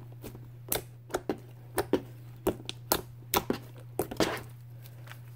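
A lump of white slime being pressed and kneaded by hand, giving a run of sharp, irregular clicking pops, a few each second, that stop shortly before the end.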